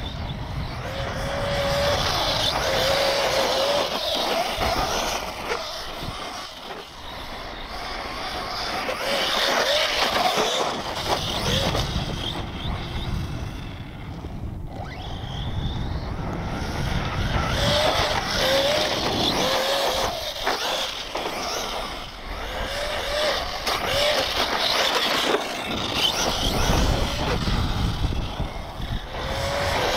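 Brushless electric RC truck driven hard on loose dirt, its motor whining up and down in short bursts with the throttle, over a steady rushing noise of tyres and dirt.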